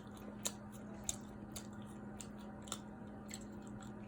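A person chewing a syrup-soaked pancake, with wet mouth smacks and a few short sharp clicks spaced about half a second to a second apart.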